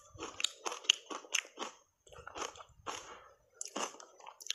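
Close-miked crunching and chewing of shaved ice coated in matcha powder: a quick run of sharp crunches in the first two seconds, a brief pause, then slower crunches.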